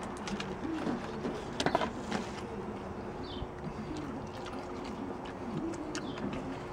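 Two people eating hot dogs and buns as fast as they can: chewing, mouth noises and handling of soggy buns, with a short burst of sharp clicks about a second and a half in.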